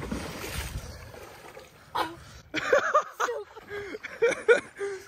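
Lake water splashing as a swimmer plunges in and swims, followed from about two seconds in by a run of short, high vocal cries and exclamations.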